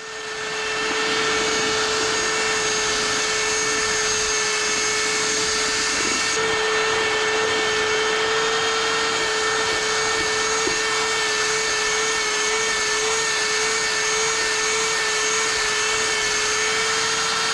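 Handheld electric drill with a mixing paddle running at a steady speed, stirring mortar in a bucket. It comes up to speed in the first second, then holds one constant whine.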